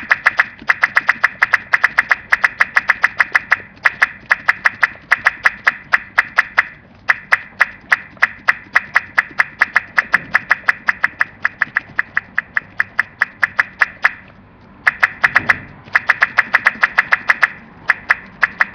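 A kid making a rapid crackling run of clicks with his mouth, like tiny firecrackers, about eight a second, breaking off briefly a few times.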